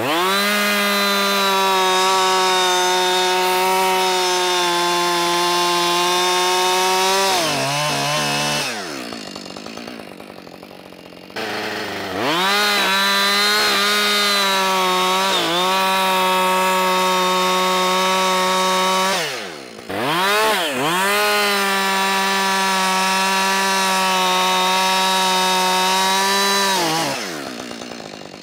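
Two-stroke chainsaw run at full throttle while cutting through a log, three long cuts of several seconds each at a steady high pitch. Between cuts the engine drops back toward idle, with a short blip of the throttle after the first.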